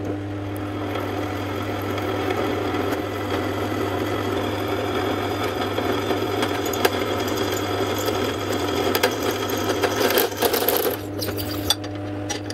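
Ryobi bench drill press running with a steady motor hum while its bit cuts into a small metal part held on the table, a grinding, chattering cut over the hum. The cutting noise gets rougher toward the end, then stops shortly before the end while the motor keeps running.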